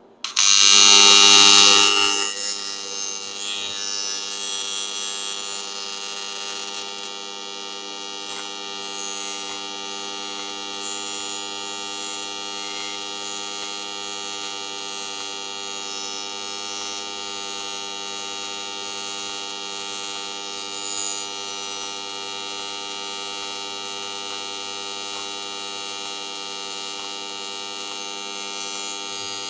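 TIG welding arc struck on an aluminum plate. It starts suddenly and loud, then settles after about two seconds into a steady electric buzz that holds as the bead is run.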